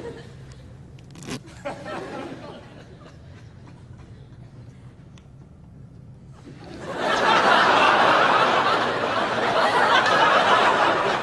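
Studio audience laughing, swelling up loudly about six and a half seconds in after a quiet stretch with a few small clicks.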